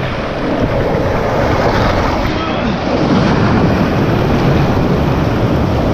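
Rushing creek water splashing and churning around a river tube, with wind buffeting the microphone.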